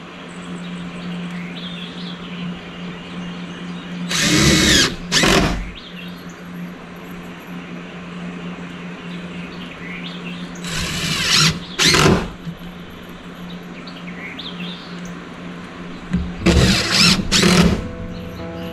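Cordless drill driving screws, three times, each in two or three short whining pulls, over a steady low hum.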